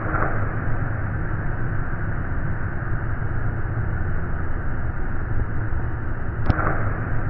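Steady mechanical hum and hiss of a running machine, with one sharp click about six and a half seconds in.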